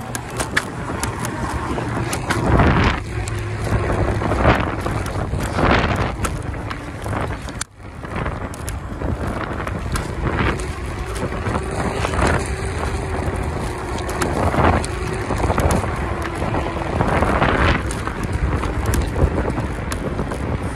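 Wind rushing over the microphone and tyre rumble from a scooter ridden fast along a concrete footpath, swelling every few seconds, with light clicks over the path joints and a faint steady hum.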